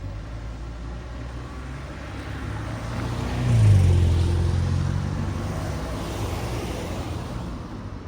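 A road vehicle passing close by: engine and tyre noise building to a peak about three and a half seconds in, the engine note dropping in pitch as it goes past, then fading away.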